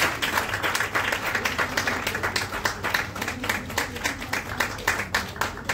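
Audience applauding, with single loud claps close by standing out above the rest.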